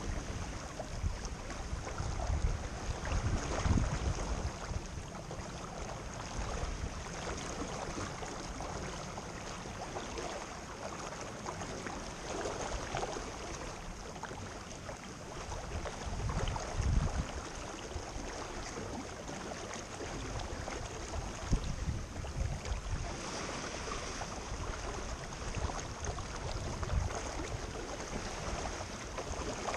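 Wind buffeting the microphone in irregular gusts over the steady rush of water along a moving boat's hull.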